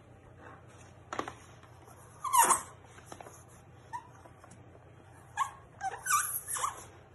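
Skin squeaking on a smooth plastic sheet as palms rub and press an adhesive sheet flat. There are several short squeaks sliding in pitch: one about a second in, the loudest about two and a half seconds in, and a quick cluster in the last two seconds.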